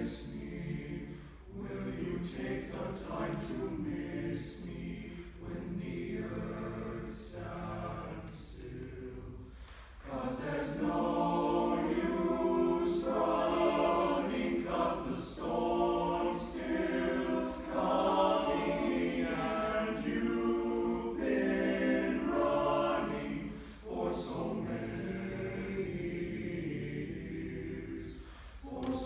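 Teenage boys' choir singing unaccompanied in sustained chords. They sing softly at first, then much louder from about ten seconds in, with a brief break for breath about twenty-four seconds in.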